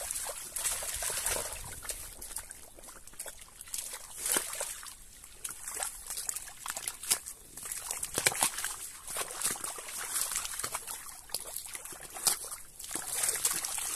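Pigs wallowing and rooting in wet mud: irregular squelches, splats and sloshing, mixed with the pigs' own noises.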